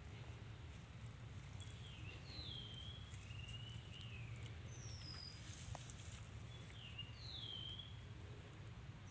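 Several short whistled bird calls, most sliding down in pitch, over a faint low steady hum.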